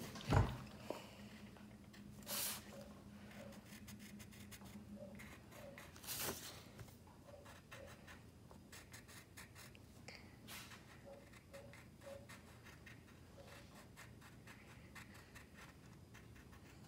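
Wooden pencil drawing on paper: faint, quick scratchy strokes, with a few louder scrapes, one about two seconds in and one about six seconds in.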